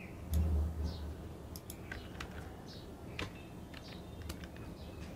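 Scattered, irregular clicks of a computer mouse and keyboard while a document is being edited, with a low thud about half a second in.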